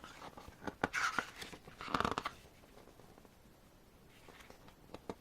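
Paper rustling as photobook pages are turned: a few swishes in the first two seconds, then a few light ticks near the end.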